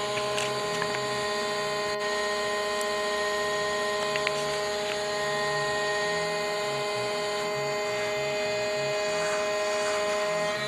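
SIP Hydroptic 8 jig boring machine running: a steady machine hum made of several held tones, with a few faint ticks.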